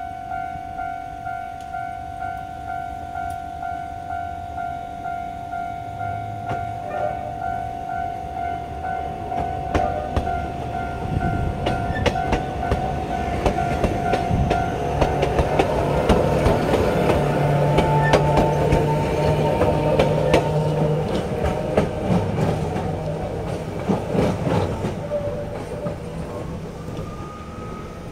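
Level-crossing warning bell ringing in a steady repeating beat. A narrow-gauge electric train then passes close by, its wheels clicking over the rail joints and its motors humming at the loudest point, before fading as it pulls away.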